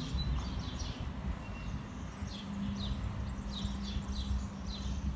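Small birds chirping in quick runs of short, falling chirps, repeated several times over a low rumble; a faint steady hum comes in about halfway through.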